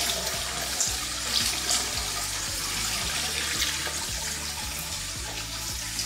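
Clean water running in a steady stream from the stainless-steel outlet spout of a grease removal device and splashing below, the flow easing off slightly toward the end. This is the separated water leaving the unit after the oil has been pushed out into the collection cassette.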